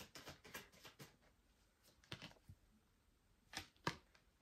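Faint soft clicks and taps of oracle cards being handled on a table: a quick run of clicks in the first second, a couple more around the middle, and two sharper taps near the end.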